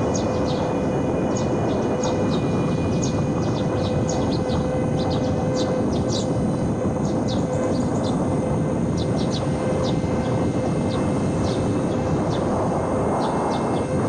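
Small electric RC airplane's brushless motor and propeller running steadily under a rush of wind noise, holding one constant hum that drops out briefly near the end. Short high chirps come and go over it throughout.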